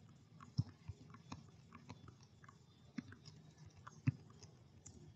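Computer keyboard keys pressed one at a time, faint and irregular, with the two loudest clicks about half a second and four seconds in.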